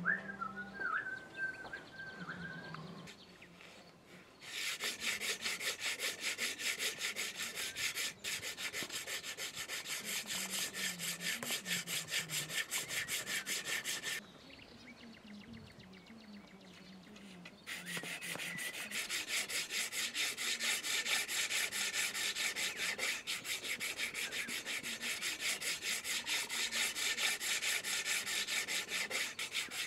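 Fast, even scraping strokes on the wooden stave of a bow being shaped by hand, stopping for a few seconds midway and then resuming. A short wavering squeak comes before the strokes begin.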